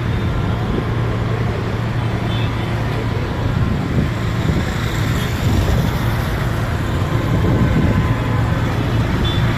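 Steady road traffic noise, with vehicle engines running and a faint murmur of voices.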